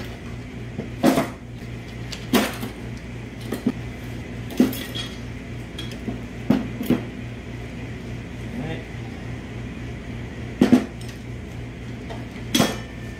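Steel and friction clutch plates from a 6L80 automatic transmission clutch pack clinking against each other and the drum as they are lifted out and set down: sharp metallic clinks every second or two, over a steady low hum.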